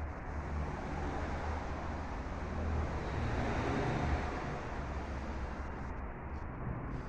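Steady low rumble with a hiss over it, swelling a little around the middle.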